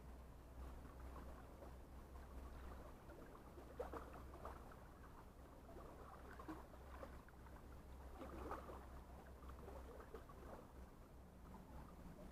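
Near silence at the sea shore: a faint steady low hum under soft, irregular lapping of water.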